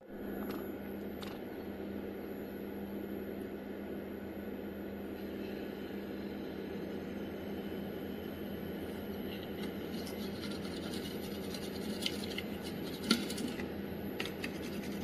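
Steady machine hum with a low tone under an even hiss. A few light clicks and taps come near the end, the sharpest about thirteen seconds in.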